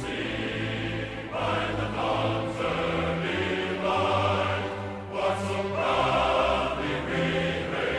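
Slow background music of sustained choral voices, held chords changing every second or so over a steady bass.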